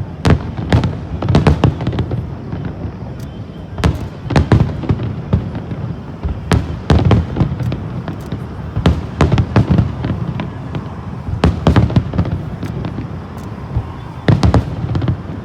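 Fireworks display: a rapid, irregular run of sharp bangs and cracks from aerial shells, coming in clusters with a continuous low rumble between them.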